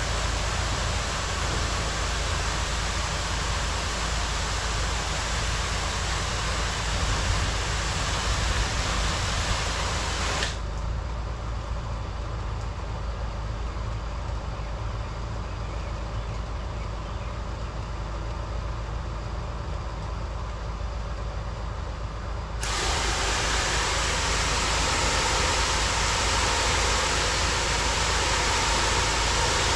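Engine-driven pressure washer running steadily, with the hiss of spraying water over a low engine hum. The hiss drops away for about twelve seconds in the middle, leaving the engine, then comes back.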